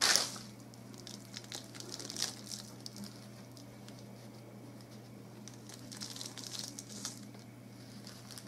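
Hands handling and pressing clumps of moss around hyacinth bulbs in a flower pot: a loud rustle at the start, then soft scattered rustles and crackles over a faint steady low hum.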